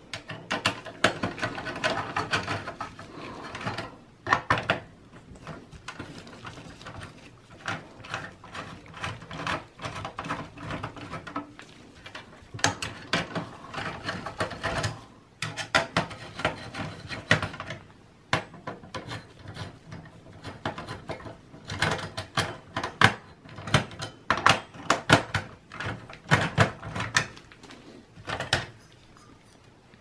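Screwdriver backing out the CPU heat sink screws of a Dell OptiPlex 5050 small-form-factor desktop: scraping in the first few seconds, then clusters of sharp clicks and light metal knocks as the heat sink and fan are worked loose and lifted out.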